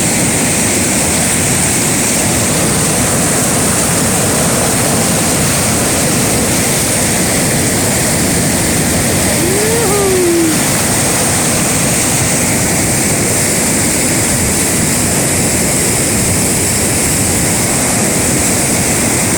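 Waterfall on a large river, rushing water as a loud, steady roar. About ten seconds in, a brief rising-then-falling tone sounds over it.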